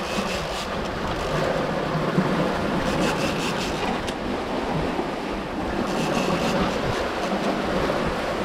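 Water rushing and splashing along the hull of a sailing catamaran under way, with wind buffeting the microphone: a steady wash of noise.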